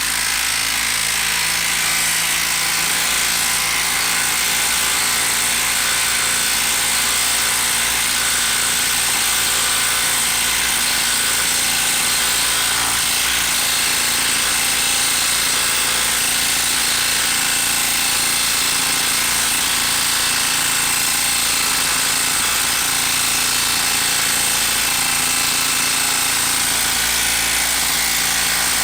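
Milwaukee 12 V brushed impact driver hammering steadily and without a break as it drives a 4.5-inch lag screw under heavy load.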